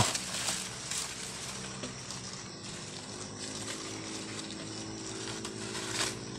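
A long bamboo harvesting pole brushing and knocking through leaves, loudest right at the start with a single click about a second in, then a steady, even rustling hiss.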